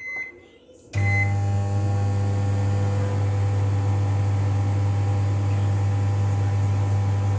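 Two short keypad beeps, then about a second in a microwave oven starts running with a steady, loud electrical hum.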